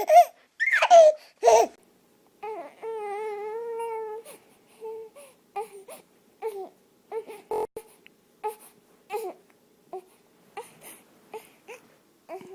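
Infant crying: loud cries at first, a long held wail, then short sobbing cries about every half second to second that grow quieter.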